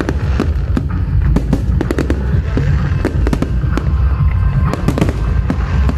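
Fireworks display: a rapid, irregular barrage of sharp bangs and crackles over a continuous low rumble.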